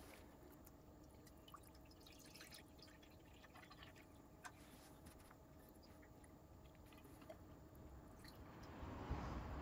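Faint trickle of water poured from a metal watering can's spout into shallow saucers, a little louder near the end.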